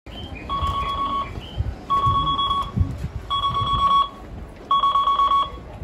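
Train-approach warning buzzer at a JR East platform indicator sounding a repeated electronic beep, each beep under a second long and coming about once every second and a half. It signals that a train is approaching the platform.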